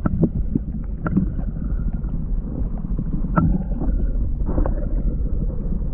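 Kayak on the water: a steady low rumble of wind and water on the microphone, with scattered sharp knocks and clicks against the hull.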